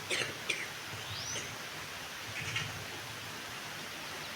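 A few short, faint bird chirps, one of them a quick rising note, over a steady background hiss.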